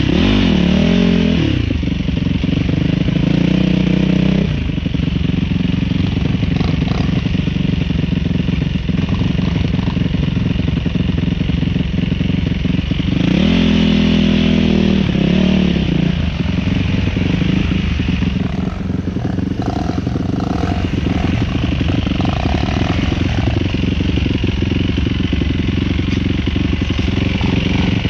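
Enduro dirt bike engine running hard along a rough trail. The revs rise and fall sharply near the start and again about halfway through.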